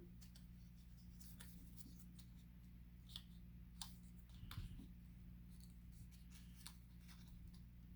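Faint crinkling and ticking of paper being handled and creased while folding a paper airplane, a scattering of small sharp sounds over a steady low hum.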